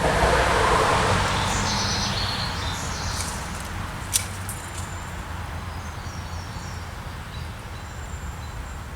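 Cast of a fishing rod: a rushing swish that fades over the first couple of seconds, then a single sharp click about four seconds in. A steady low rumble runs underneath.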